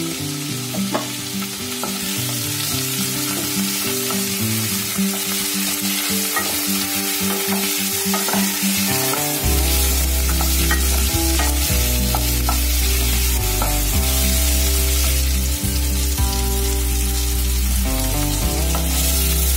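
Chopped tomatoes and sliced onions sizzling in hot mustard oil in a nonstick kadai, stirred with a spatula. Background music plays underneath, and a deep bass comes in about halfway, making it louder.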